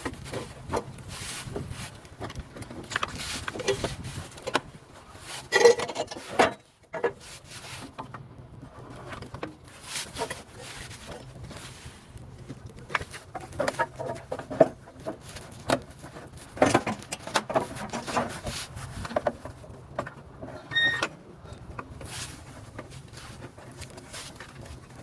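Irregular knocks, clunks and scrapes from the fuel tank of a 1990 Chevy K1500 pickup being lowered slowly on a jack, its lines and hoses shifting against the frame. There is a short squeak about twenty seconds in.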